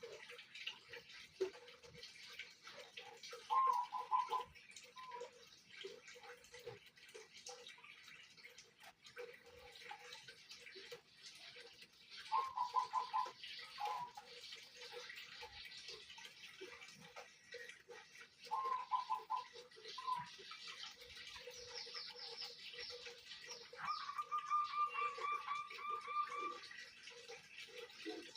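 Zebra doves (perkutut) cooing: short groups of quick, rolling notes every few seconds, with one longer rolling coo about three-quarters of the way in. Fainter, higher chirps from other birds come between them.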